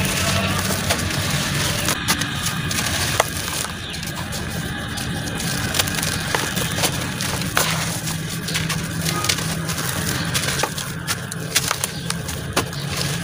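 Chunks of dry sand-cement crushed and crumbled by hand into a basin of water: gritty crunching with many short sharp cracks as pieces break and fall into the wet slurry, over a steady low hum.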